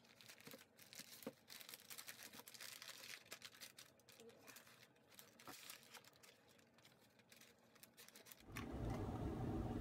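Brown paper wrapping rustling, crinkling and tearing as small coin packages are unwrapped by hand, faint, with scattered small clicks. Near the end a louder low rumble of handling comes in.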